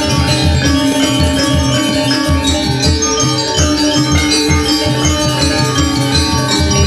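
Balinese gamelan gong ensemble playing: bronze metallophones and a row of kettle gongs struck with mallets ring in dense interlocking patterns over a pulsing low beat.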